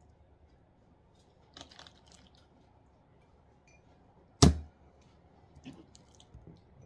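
Raw chicken being handled and cut on a cutting board: a few light taps and clicks, then one sharp, loud knock on the board about four and a half seconds in.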